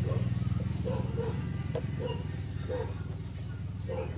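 Birds calling: a regular run of short, high, falling chirps about two to three a second, with shorter lower notes between them, over a steady low hum.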